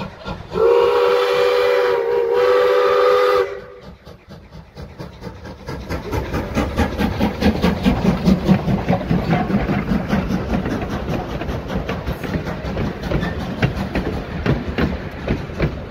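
A steam whistle sounds a chord of several notes for about three seconds, with a brief break partway through. Then the fast rhythmic clatter of a moving train builds up and carries on.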